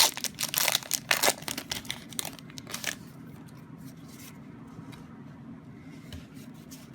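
Foil wrapper of a Pokémon booster pack being torn open and crinkled: a burst of sharp tearing and crinkling through the first three seconds, then only faint handling.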